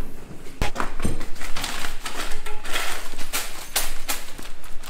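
Irregular clicks, light rattles and rustling as the raised garden bed's metal pieces and hardware are handled.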